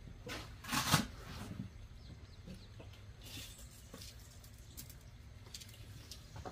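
Tape measure being drawn out and laid along a folding solar panel: a knock about a second in, then faint scraping and a few light clicks.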